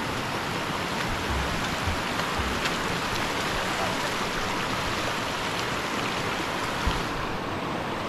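Shallow mountain stream running over stones and gravel: a steady rushing hiss, with a few dull low thumps.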